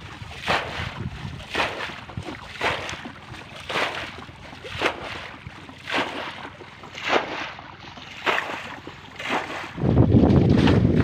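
Muddy water being bailed out of a shallow pool by hand with a container, one short splash about every second. Near the end, loud wind noise on the microphone takes over.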